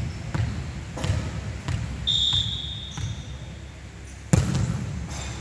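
A volleyball bounced three times on the hardwood court before a serve. A short, steady whistle blast comes about two seconds in, then a loud smack of the serve striking the ball a little after four seconds in.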